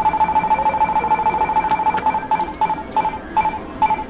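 Candy vending machine's electronic beeper during its number roulette: a fast run of identical high beeps that slows, from about halfway through, into single beeps spaced further and further apart as the random number counter winds down to a stop.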